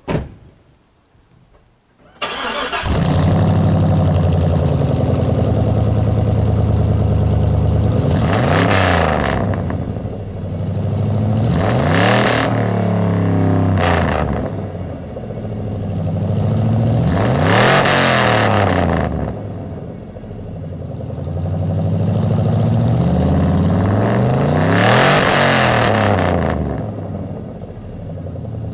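Chevrolet Silverado's 4.8 L LR4 Vortec V8 starting about two seconds in, then running loud through true dual exhaust with glasspack mufflers. It is revved several times, the pitch rising and falling with each rev, and settles back to idle between them.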